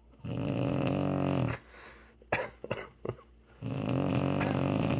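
A woman snoring: two long, loud snores a little over a second each, about two seconds apart, with a few small clicks in the pause between them.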